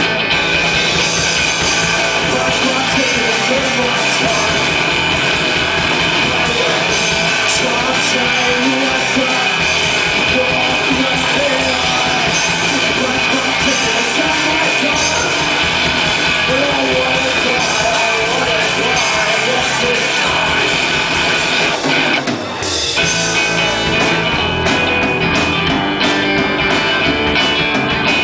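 Live rock band playing: electric guitar, bass guitar and drum kit together, dense and loud, with a brief break in the playing about 22 seconds in before the band comes back in.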